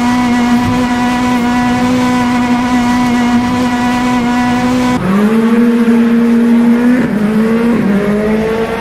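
Drift car's engine held at high, steady revs while the car slides sideways with its tyres squealing. About five seconds in the revs drop sharply and climb again, with two quick dips near the end as the throttle is worked.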